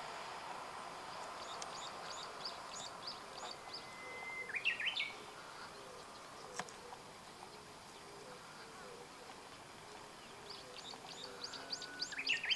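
Small songbird singing: a quick run of thin, high chirps, then a short whistle leading into a few rapid rising notes. The phrase comes twice, once about four seconds in and again near the end, over faint steady background noise.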